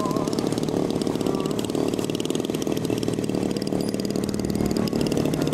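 Engine of a radio-controlled scale P-51 Mustang model running steadily at a low, even speed.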